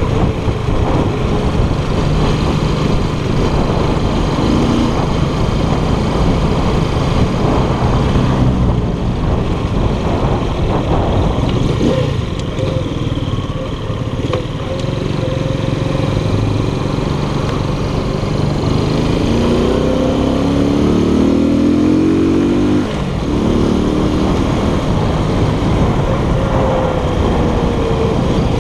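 Keller Crono 110 scooter's 110 cc engine running under way, with a steady rush of wind noise. It eases off about twelve seconds in, then revs up with rising pitch around twenty seconds and drops off sharply a few seconds later.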